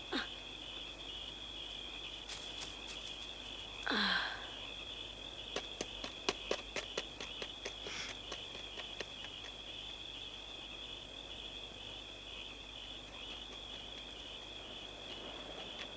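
Crickets chirping steadily in a soundtrack ambience. About four seconds in there is a short call that falls sharply in pitch, and between about five and nine seconds there is a run of light clicks.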